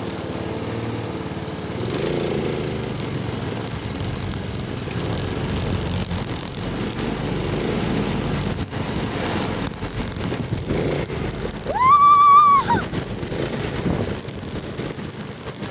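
Golf cart driving over rough grass: a steady running noise with rattling from the cart's body and frame. About twelve seconds in, a short high-pitched squeal rises and falls.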